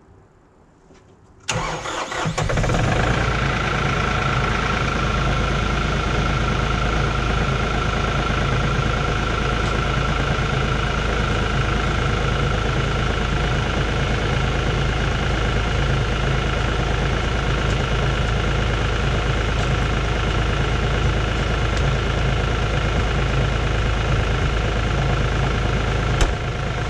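LS compact tractor's diesel engine cold-started after glow-plugging: it catches suddenly about a second and a half in, then idles steadily with a constant high whine over the engine note.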